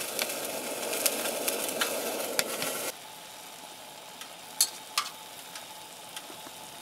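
Meat searing in a hot Dutch oven, a steady sizzle with scattered pops of spitting fat. About three seconds in it drops abruptly to a quieter sizzle, with two sharp clicks a little later.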